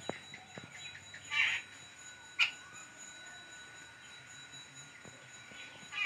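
A small bird chirping: two short calls, the first about a second and a half in and a sharper, briefer one about a second later, over a faint steady high-pitched whine.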